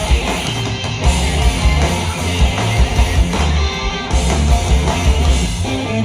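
Rock band playing live, heavy and loud, with guitar, bass and drums and no vocals.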